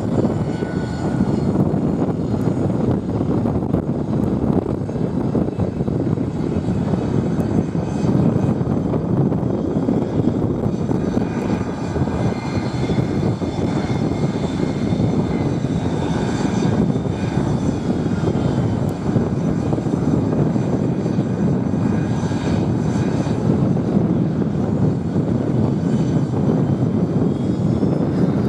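Aero L-39 Albatros jet trainers taxiing, their turbofan engines running in a steady loud rush with a faint high turbine whine that drifts in pitch.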